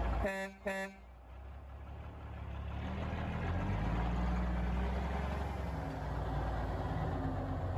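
Two short horn toots, then a heavy tow truck's diesel engine running, its deep rumble building over the first few seconds and then holding steady.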